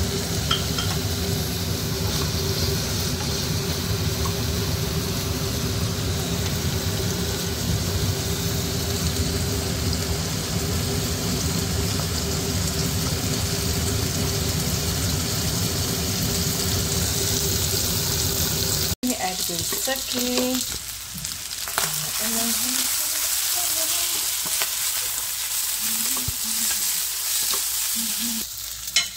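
Chicken fried rice sizzling as it is stir-fried in a hot pan, with a steady hum underneath. About two-thirds of the way through there is an abrupt break, after which the sizzle is quieter and faint wavering pitched sounds come and go.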